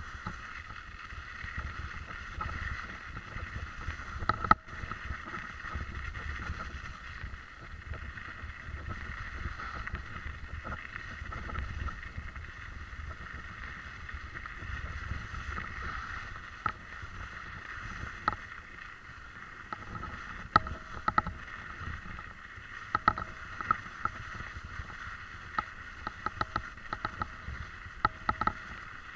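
A vehicle driving over a snow-covered track, heard from a camera mounted on it: a steady motor whine over a low rumble. From about twenty seconds in come frequent sharp clicks and ticks.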